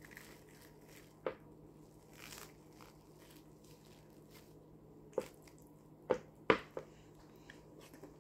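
Hands handling cling film around fufu and a glass food dish: a few scattered short taps and clicks, with faint plastic crinkling. One tap comes early and a cluster of three or four comes about two-thirds of the way through.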